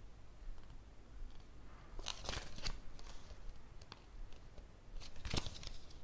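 Handling noise from unboxed accessories and their packaging: two short bouts of rustling and crunching, about two seconds in and near the end, with a few light clicks between.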